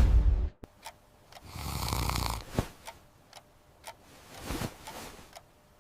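Music cuts off half a second in, leaving a sleeper's snoring, two breaths long, over a clock ticking steadily about once every two-thirds of a second.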